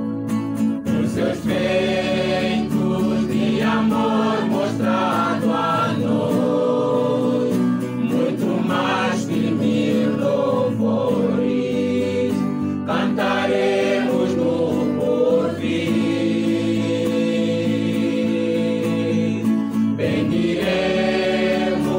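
Background music: a choir singing a gospel-style song with instrumental accompaniment.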